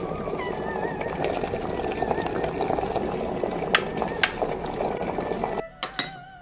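Electric kettle boiling hard, a dense rolling bubbling with two sharp clicks in the middle. The boiling cuts off abruptly about five and a half seconds in, followed by a few light clinks of a porcelain teapot lid.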